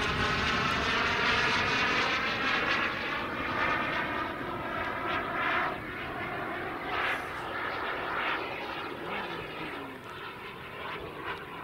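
The Jetsmunt M210 turbine of a 1/5-scale model Dassault Rafale jet is heard in flight, a high whine over rushing jet noise. It grows fainter over the last few seconds as the jet moves away.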